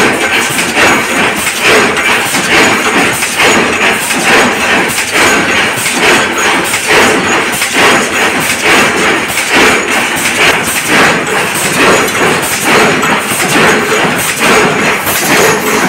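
Metal stamping press shop noise: repeated impacts, roughly one or two a second, over a steady loud clatter.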